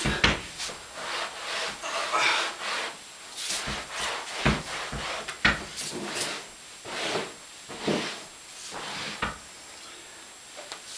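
A cotton washcloth rubbed hard back and forth over microfiber upholstery on an armchair and ottoman: a string of uneven brushing strokes, one or two a second, that stop about nine and a half seconds in.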